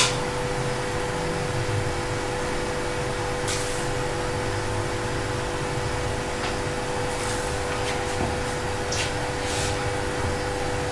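Steady kitchen background noise: an even hiss with a constant hum and a few faint clicks.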